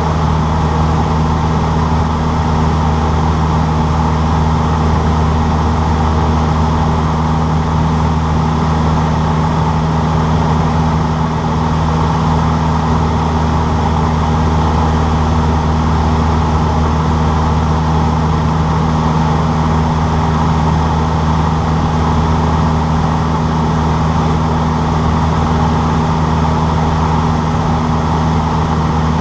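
Cessna 152's four-cylinder Lycoming piston engine and propeller running at a constant, unchanging pitch, a loud steady drone.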